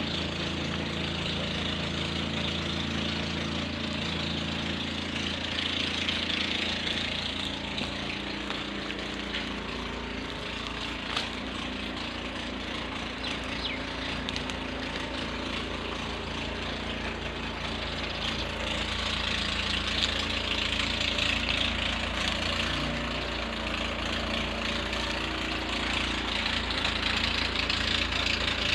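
An engine running steadily at idle, with a constant low hum.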